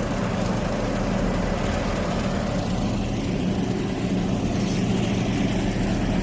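The heavy engine of road-construction machinery running steadily, at an even pitch and level.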